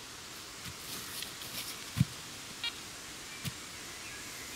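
Quiet outdoor background hiss with a few soft low thumps, the loudest about two seconds in, and one short high beep a little after it.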